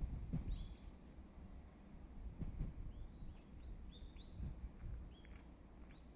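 Small birds chirping in short, scattered calls, over a low rumble with a few dull low thumps.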